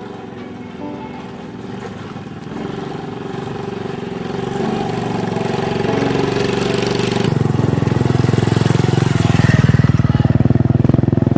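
Small motorbike engine running as it rides up and passes close by, getting steadily louder, with a rapid engine pulse that is loudest in the last few seconds.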